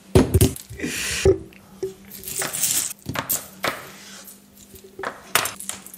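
Kitchen knife knocking and scraping on a wooden cutting board: a series of irregular sharp knocks, with a short scrape about a second in, over a faint steady hum.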